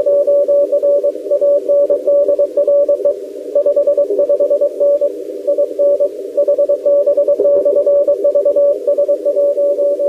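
Morse code (CW) on the 7 MHz amateur band from a portable shortwave transceiver: a steady tone near 600 Hz keyed on and off in dots and dashes, over the narrow band of hiss left by the radio's CW filter.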